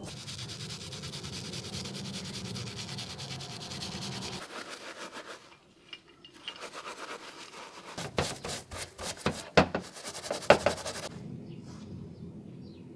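Wire brush scrubbing the parts of a small vise in soapy washing liquid, with rapid back-and-forth rubbing strokes. It eases off about five seconds in, then comes back as a run of harder, louder scrapes before fading near the end.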